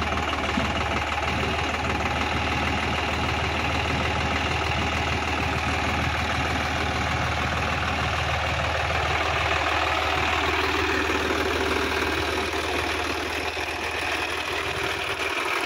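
Sonalika DI-50 RX tractor's diesel engine running steadily as the tractor works through deep mud, easing off slightly near the end.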